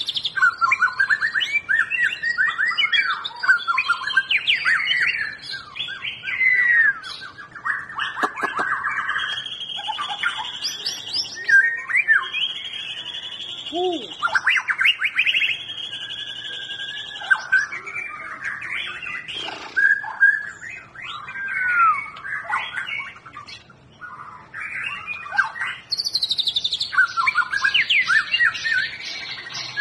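White-rumped shama singing a long, varied song of rapid whistled phrases and chattering notes, with several drawn-out trills in the middle and again near the end.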